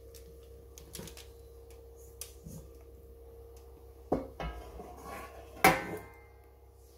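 Stainless steel tray being lifted and handled: a few faint clicks, then two metallic clanks about four and five and a half seconds in, the second louder with a brief ring.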